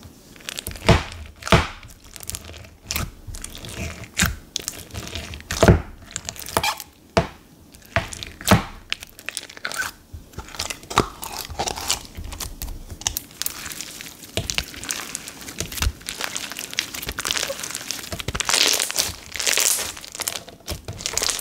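Purple white-glue-base slime packed with silica beads being poked, pulled from its tub and pressed by hand, giving sharp pops and crackles. The crackling grows denser near the end.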